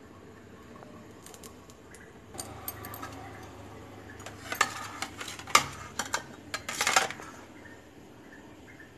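Flat metal spatula scraping and clinking against a stainless-steel bowl and its perforated plate as marinated whole fish are lifted. There is a run of sharp metallic clinks and scrapes for about three seconds in the second half.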